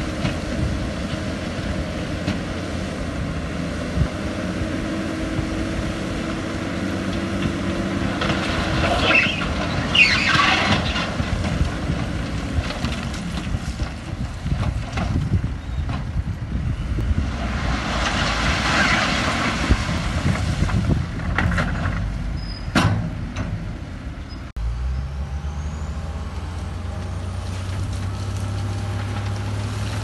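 Heavy diesel construction machinery running, its engine note shifting under work, with two loud bursts of higher-pitched noise about ten and nineteen seconds in. About twenty-five seconds in the sound cuts abruptly to a steadier, deeper engine note.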